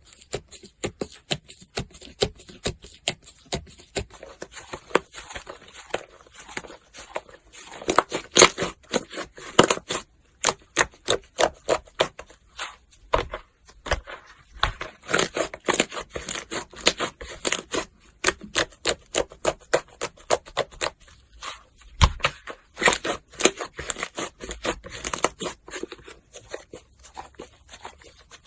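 Slime being squeezed, poked and stretched by hand, giving a fast, irregular run of sticky clicks, crackles and small pops, with busier stretches about 8, 15 and 24 seconds in.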